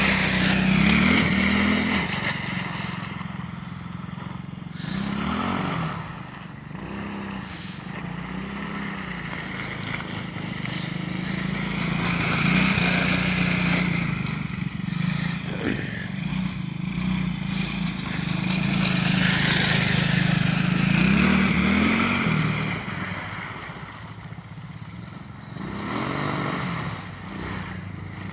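Tao Tao 110cc quad's small four-stroke single-cylinder engine running under a rider. The pitch climbs in short revs several times, and the sound grows louder and fainter by turns as the quad moves about.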